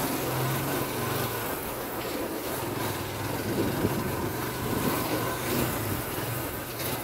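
Small motorcycle engine running steadily at low speed, its note rising and falling slightly, under a continuous rush of riding noise.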